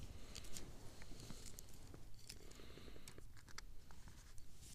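Hands scooping damp, crumbly groundbait and packing it into a small fishing feeder: soft crunching with scattered small clicks and ticks.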